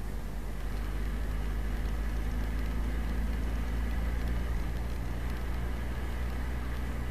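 Engine and road noise of a moving vehicle heard from inside its cab: a steady low hum with a few engine tones above it.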